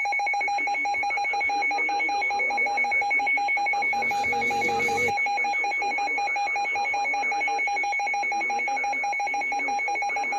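Emergency alert tone: a steady electronic alarm with a fast, rattling pulse, sounding without a break. A short burst of noise cuts across it about four seconds in.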